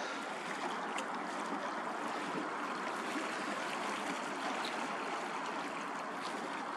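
Steady wash of water, small waves lapping at the shore, with an even outdoor hiss.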